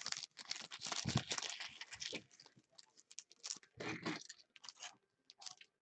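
Trading cards and foil card packs being handled: a run of short crinkling and rustling sounds, with a soft knock about a second in.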